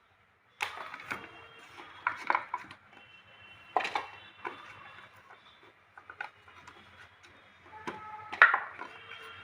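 Irregular light clinks and knocks of metal kitchenware with brief ringing, as ingredients and utensils are handled at a grinder jar ready for grinding; the loudest knock comes near the end.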